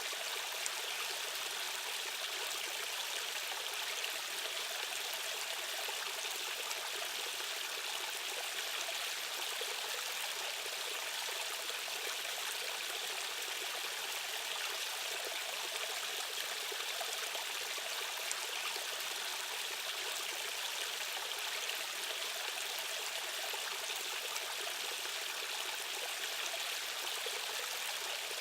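Fast-flowing stream or small waterfall rushing and splashing steadily, a continuous hiss of water with no low rumble.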